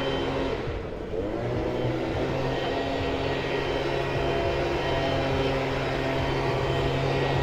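An engine running with a steady droning hum. It dips briefly about a second in, then its pitch rises.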